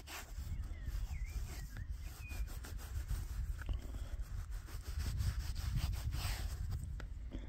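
Rubbing and rustling handling noise close to the microphone over a low rumble, with a broader rustle about six seconds in. A few faint bird chirps come in between one and two seconds in.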